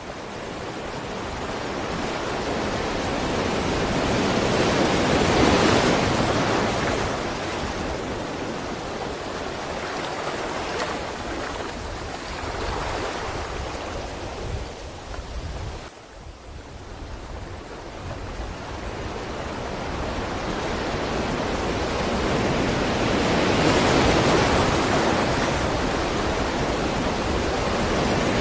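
Sea waves surging and breaking on a shore. The surf swells up about five seconds in, eases off, drops to a brief lull a little past halfway, then swells again near the end.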